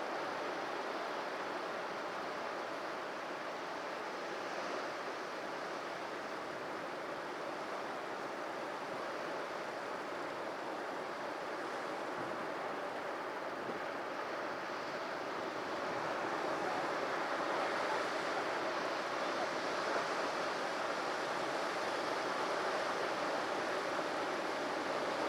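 Sea waves breaking on a shore, a steady wash of surf that grows slightly louder about two-thirds of the way through.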